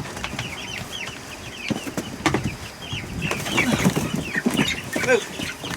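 Young chicks peeping: a steady string of short, high, falling chirps, with a few knocks and rustles among them.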